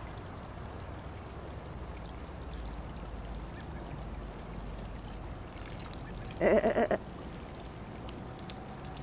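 Splash pad sprinkler water spraying steadily, and about six and a half seconds in a duck gives a short, loud run of four or five quick quacks.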